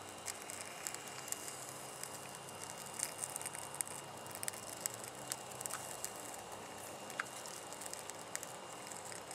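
Small fire crackling, with scattered faint ticks and pops over a steady hiss.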